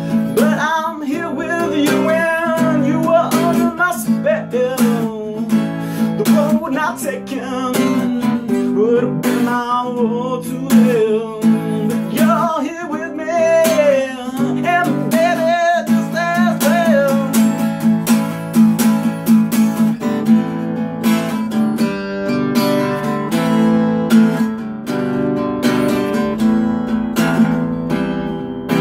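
Acoustic guitar strummed steadily while a man sings a long melodic line over it. The voice stops about two-thirds of the way through, leaving the guitar playing alone.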